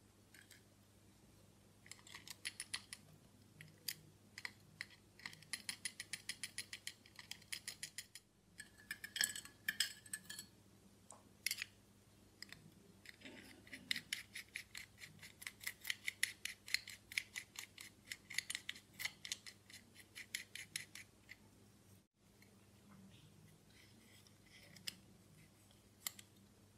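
A small brush scrubbing a steel watch movement bridge in a glass dish of cleaning fluid, heard as runs of quick scratchy strokes, several a second. Only a few scattered clicks follow near the end.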